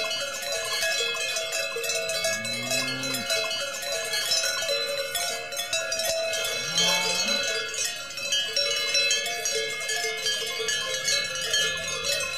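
Many cowbells on a herd of cattle clanging together as the cows walk: a dense, steady jangle of overlapping bell tones. Two short low calls that rise and fall come through about two and seven seconds in.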